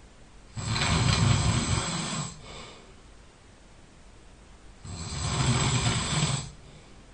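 A sleeping person snoring loudly: two long snores about four seconds apart, each lasting a second and a half or so, with quiet breathing between them.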